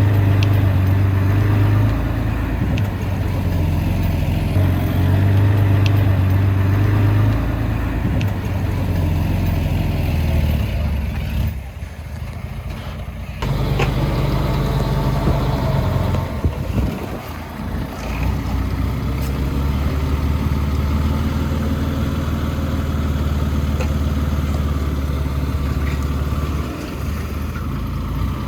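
Diesel engine of heavy earthmoving machinery running, its note shifting several times. It drops quieter for about two seconds near the middle.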